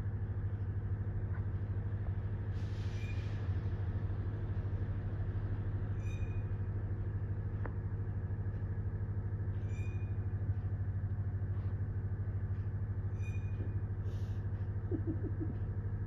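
A steady low machine hum, with a few faint, brief scratchy sounds over it.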